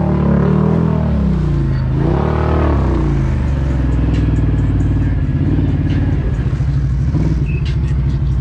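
ATV engine revving: the pitch drops about a second and a half in, rises and falls again in a quick rev, then settles into steady running with a few light clicks of clatter.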